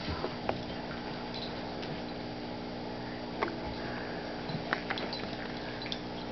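A Chihuahua puppy and a blue heeler play-wrestling: soft scuffling of paws with a few sharp clicks scattered through, over a steady hum.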